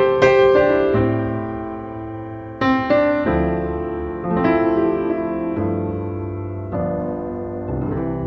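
Background solo piano music: slow chords struck every two seconds or so and left to ring and fade.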